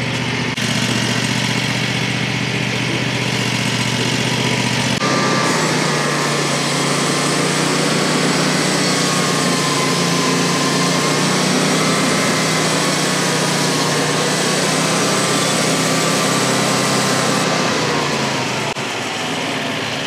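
Frontier OS35 bandsaw mill's warm gasoline engine running smoothly. About five seconds in, its note drops under load and a steady sawing noise joins it as the band blade cuts through a small oak log. Near the end the noise stops and the engine picks back up.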